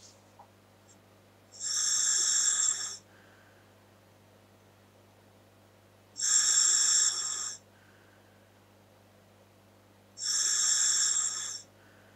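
Scuba regulator breathed through a Dräger full-face mask, hissing as its demand valve delivers air on each inhalation: three hisses of about a second and a half, roughly four seconds apart.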